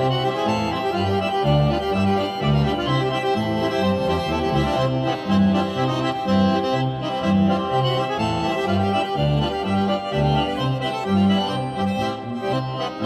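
Accordion playing a Swiss folk dance tune, over a steady bass that alternates between low notes about twice a second.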